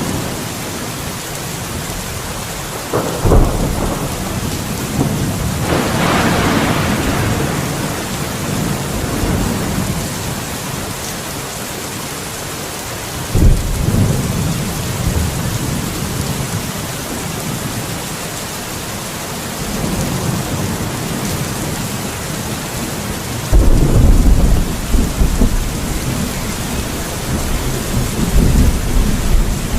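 Steady rain with repeated thunder. Sharp claps come about three seconds in and again near a third of the way through, a crackling peal a little after the first, and the loudest, deepest rumble about two-thirds through, with another near the end.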